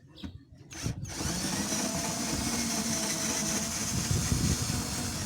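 Cordless drill starting about a second in and then running steadily, backing out a screw.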